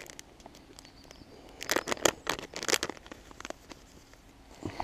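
Crinkling and rustling of a plastic packet of ESP PVA bags as it is opened and a bag is drawn out. The loudest part is a cluster of sharp crackles about two seconds in.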